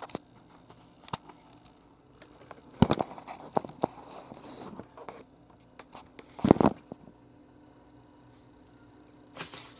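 Plastic clicks and scrapes of a Rubik's cube being handled and its faces turned, in a few irregular bursts, the loudest about three seconds in and again about six and a half seconds in.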